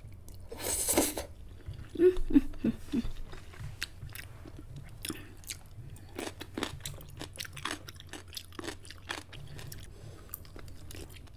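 Close-miked eating of instant noodles: a short loud slurp as a mouthful of noodles is drawn in, then steady chewing with many small wet mouth clicks.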